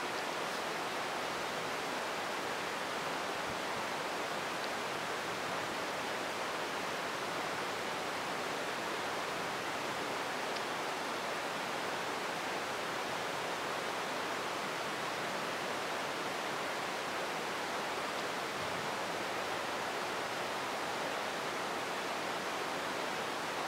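Heavy rain pouring down steadily, an even hiss that does not let up.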